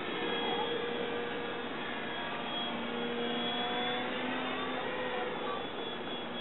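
Engine of a radio-controlled aerobatic model plane running in flight, its pitch sliding up and down as the plane manoeuvres.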